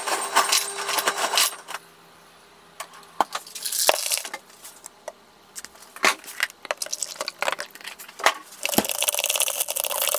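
Ice cubes clinking and rattling in a pint glass of iced coffee as it is made and stirred. There are several bouts of quick clinks, the longest near the end, with a few single knocks in between.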